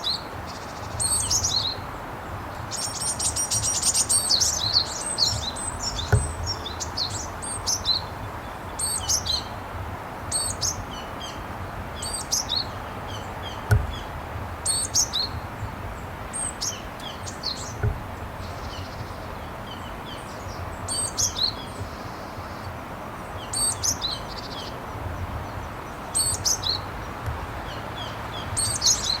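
Japanese tit calling: short high notes repeated every two to three seconds, with a dense buzzy run of rapid notes about three to five seconds in. A steady background hiss runs beneath, with a few low thumps.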